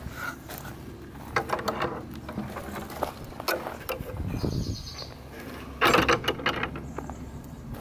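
Footsteps on dry grass and a dirt garden path, irregular crunchy steps with rustling, the loudest cluster about six seconds in.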